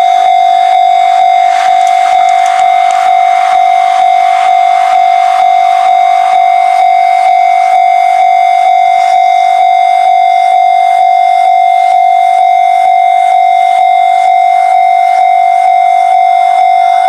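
Japanese level-crossing electronic warning bell ringing: a loud, steady ding repeating about twice a second.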